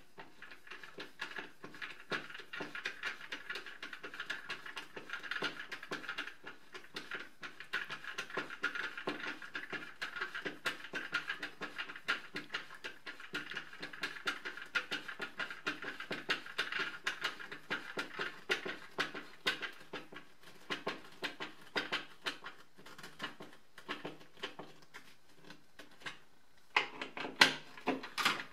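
Hand screwdriver driving screws through a plastic vacuum wall mount into drywall anchors: a steady run of small clicks and creaks as the screw turns. The loudest sound is a short, louder clatter near the end.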